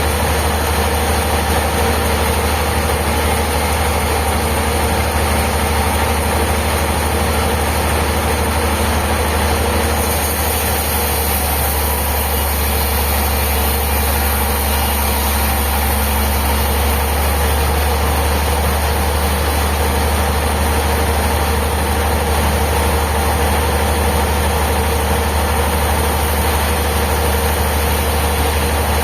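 An engine running steadily at a constant speed, a loud low drone with an even hiss above it that shifts slightly about ten seconds in.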